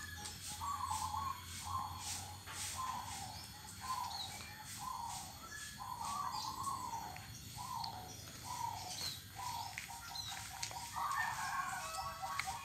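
Zebra dove (perkutut) cooing: a steady series of short, soft coo notes, about one every half to three-quarters of a second, breaking into a quicker stuttering run near the end.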